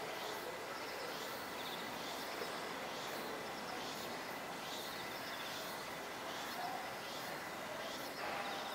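Outdoor ambience: a steady wash of background noise with short high chirps repeating about once or twice a second.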